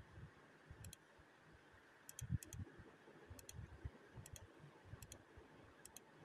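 Near silence, broken by faint, sharp clicks that come mostly in close pairs, roughly once a second, with a few soft low thumps between them.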